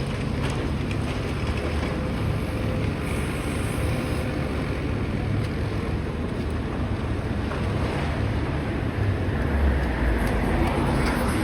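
Demolition excavator's diesel engine running, with wind buffeting the microphone. The low rumble grows heavier near the end.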